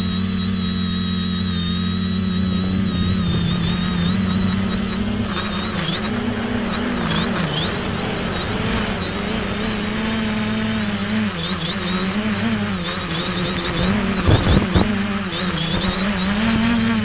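Quadcopter's electric motors and propellers whining, heard from on board, the pitch wavering up and down as the throttle changes. A rougher rush of air joins about five seconds in, with a few brief loud bumps near the end.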